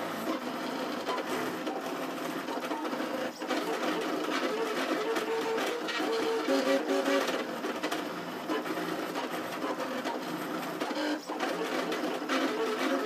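Trinity Labs Aluminatus 3D printer at work, its stepper motors driving lead-screw axes. They whine in short notes whose pitch jumps from move to move as the print head travels.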